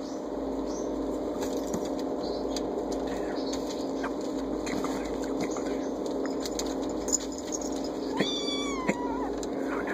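A kitten meows once near the end, a single call of about a second that falls slightly in pitch. A steady low hum and a few small taps lie underneath.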